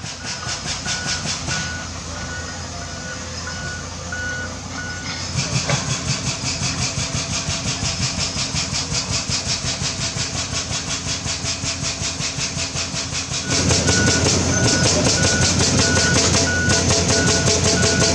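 Heavy construction machinery running with a rapid, even pulsing, and a backup or travel alarm beeping steadily in two spells. The machine gets louder about two-thirds of the way through, as the second spell of beeping starts.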